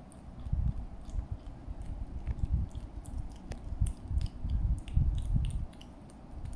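Golden British shorthair kitten licking and biting at a squeeze-tube cat treat: irregular wet smacks with scattered small clicks.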